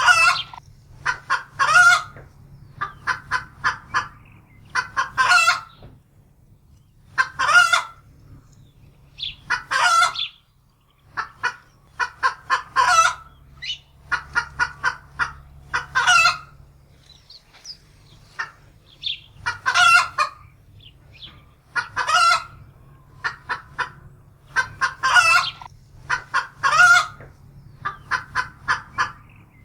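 Domestic hen alarm-cackling, the fright call of a hen that has seen a predator. Each phrase is a run of quick clucks ending in a loud, drawn-out squawk, repeating every two to three seconds.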